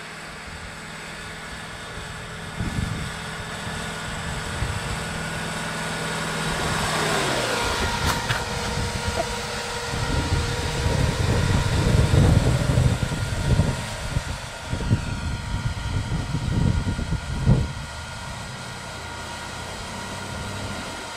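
A 1969 Toyota Land Cruiser's engine running as the truck drives through deep snow. Its pitch falls about seven seconds in. From about ten seconds there is a stretch of loud, uneven low surges as the engine works and the tyres churn the soft snow close by, then a steadier hum near the end.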